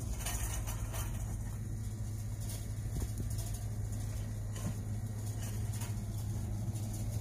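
Steady low hum with faint scattered clicks and rattles, heard while a shopping cart rolls along a store aisle.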